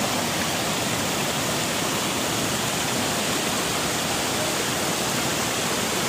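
Steady rush of water from a tall waterfall and the shallow stream below it cascading over boulders.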